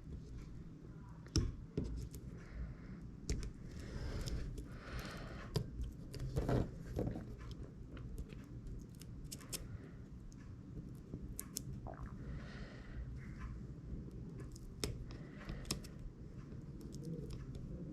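Soft scattered clicks, scrapes and rustles of small-scale handwork on an opened iPhone 6s, as the battery's adhesive pull tabs are pulled.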